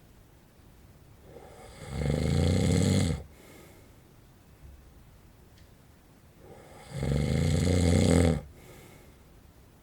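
A man snoring in his sleep: two loud, low snores about five seconds apart, each lasting just over a second.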